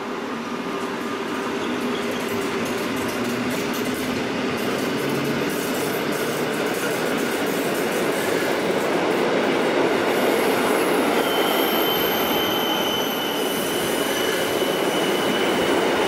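Rhaetian Railway metre-gauge regional train, red Einheitswagen coaches hauled by a Ge 4/4 II electric locomotive, rolling past with a steady rumble of wheels on rail that slowly grows louder. About two-thirds through, a high steady wheel squeal sets in and holds.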